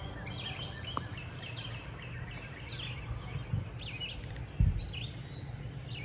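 Several songbirds chirping in short, repeated calls over a steady low rumble, with a dull thump about four and a half seconds in.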